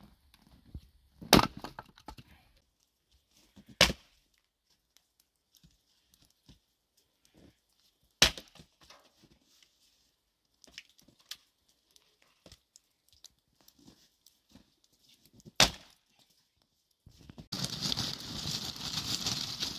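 Hatchet chopping small firewood into kindling: four sharp single chops spread out, with quiet handling of sticks between them. Near the end, hands rummage through a woven plastic sack of dry tinder with a steady crackling rustle.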